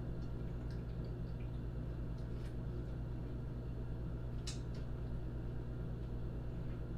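Steady low electrical hum with a few faint clicks and soft squishy eating sounds of someone chewing a sandwich.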